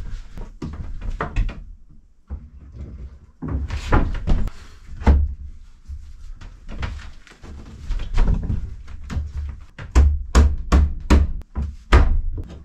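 A new wooden sill being worked into its rabbet under a boat's cabin side: scraping and knocking of wood on wood as it is pushed in. Near the end come a quick run of sharp knocks, about three a second, as it is tapped home with a hammer.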